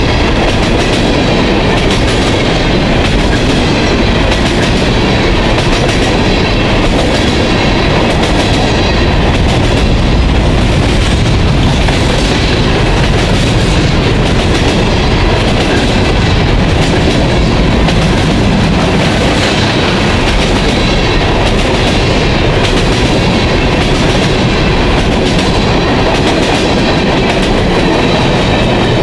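Freight train of steel coal gondolas and hoppers rolling past: steel wheels clicking over the rail joints in a steady clickety-clack, with a continuous loud rumble and rattle of the cars.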